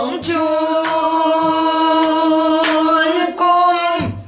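A woman singing a Korean danga in pansori style, holding one long, nearly level note on the word '처량하다' with a slight waver. The note is broken once briefly about three seconds in, and a few sharp knocks sound beneath it. The voice drops out just before the next phrase, '청춘꿈', begins at the very end.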